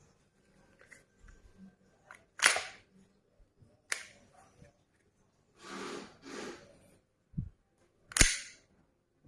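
Umarex Glock 17 blowback air pistol fired twice, about six seconds apart; each shot is a sharp crack as the slide cycles. Lighter clicks and handling noises fall between the shots.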